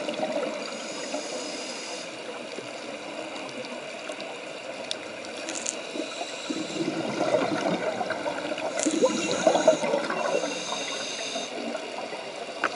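Scuba breathing through a regulator underwater: a thin high hiss on each inhalation and bursts of exhaled bubbles gurgling, the heaviest bubbling in the second half.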